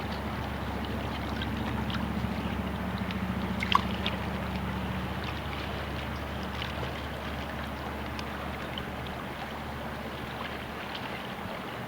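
River water running steadily, with a few small clicks and one sharper click about four seconds in.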